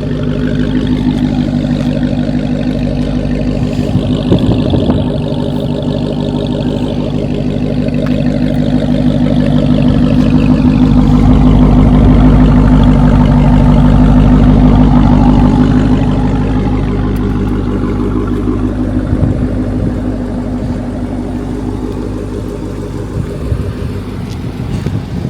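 Dodge Hellcat's supercharged V8 running at a steady speed, getting louder from about ten seconds in and easing off again after about sixteen seconds.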